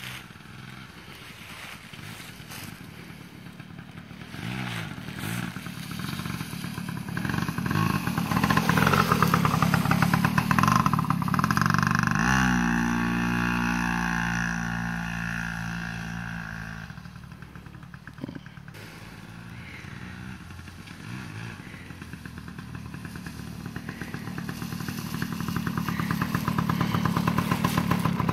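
Yamaha PW80 dirt bike's small two-stroke single-cylinder engine running as it rides the trail, with the pitch rising and falling with the throttle. It grows loud as the bike passes close around the middle, fades away, then grows louder again as it comes up close near the end.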